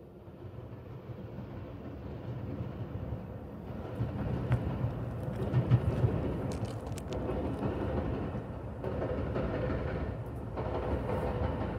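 Metra commuter train coming through the junction: a rumble that grows louder over the first four seconds and then holds, with several sharp clicks from about four to seven seconds in.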